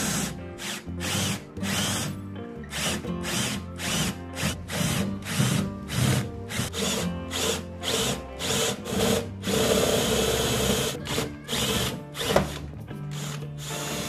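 Cordless drill with a 19 mm spade bit boring a hole through a plywood cabinet door, run in repeated short spurts with one longer unbroken run about ten seconds in.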